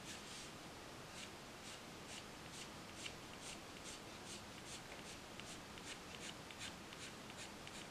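Prismacolor colored pencil scratching on paper in short, light flicking strokes, about two a second, faint and evenly paced.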